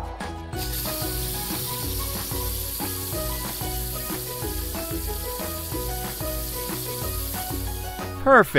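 Spray-paint hissing steadily as a cartoon car is sprayed blue, over a bouncy background tune with a regular beat. Near the end a short, loud sound effect falls in pitch.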